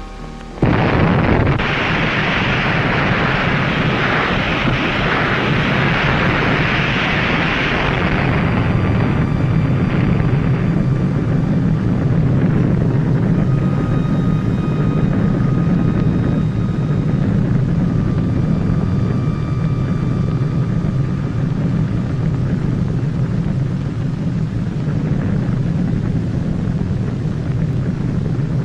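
Underwater atomic bomb blast: a sudden explosion about a second in, then a loud rush of noise that eases after about eight seconds into a long, steady low rumble.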